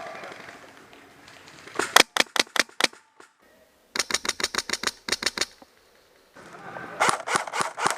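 Airsoft rifle firing on full auto in three rapid bursts of sharp cracks, about eight shots a second: the first about two seconds in, a longer one about four seconds in, and a third starting near the end.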